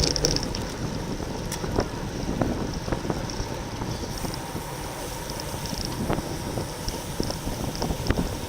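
Wind rushing over the microphone of a bicycle-mounted camera while riding at race speed, with scattered short clicks and knocks from the bike on the road.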